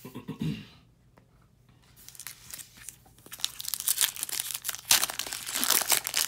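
Foil wrapper of a Topps Chrome trading-card pack crinkling and tearing as it is pulled open by hand. It starts about two seconds in as a dense crackle and grows louder toward the end.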